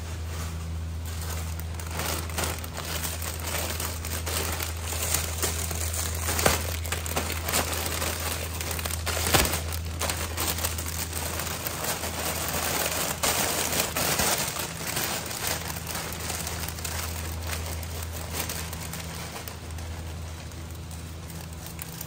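Plastic bag of dried pancit canton noodles crinkling and crackling as it is handled and emptied, with a few sharper snaps, over a steady low hum.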